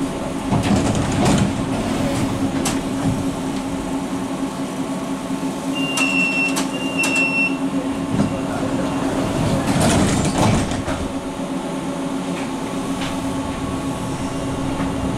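Inside an NGT8B tram standing at rest: a steady low hum from its onboard equipment, with two short high beeps about six and seven seconds in.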